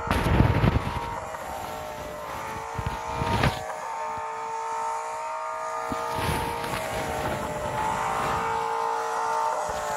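Car engine sound running at a fairly steady pitch, with a few dull thumps near the start and once about three and a half seconds in.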